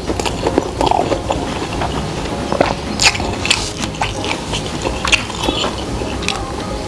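A person chewing and biting a mouthful of fried ngohiong, a tofu-skin roll filled with pork and shrimp, with scattered sharp crunches and clicks of the chewing.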